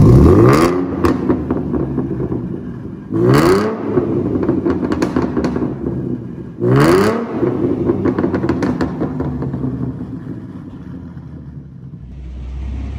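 S197 Ford Mustang exhaust, with a muffler delete and a new H-pipe, blipped three times. Each rev rises sharply and falls back, followed by crackling pops, and the engine settles to a steady idle in between.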